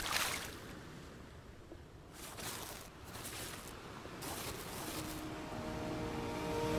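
Quiet, soft washes of surf lapping on a shore, coming in a few swells. Gentle music fades in over the second half.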